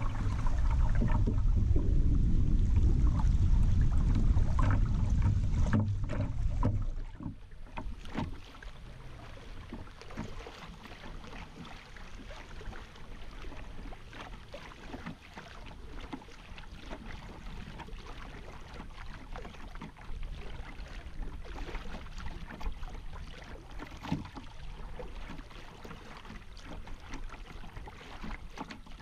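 River water rippling and lapping against a kayak's hull as it moves downstream, with many small, irregular splashes. For about the first seven seconds a heavy low rumble of wind buffeting the microphone covers it, then drops away.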